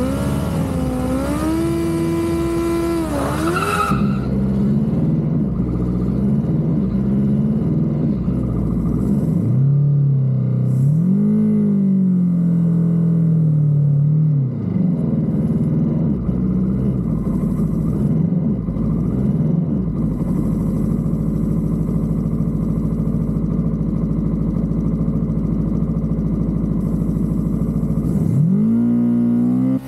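Formula Student race car's engine, heard from the cockpit, revved and held for a few seconds, then idling unevenly with small throttle blips. It revs up and falls back once near the middle, and climbs steeply in revs near the end.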